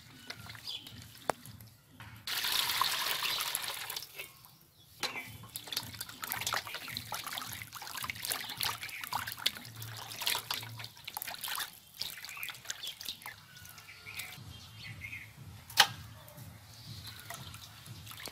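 Water poured into a stainless steel bowl about two seconds in, then hands splashing and rubbing chunks of fish in the water, with small splashes and clicks throughout. A single sharp knock near the end.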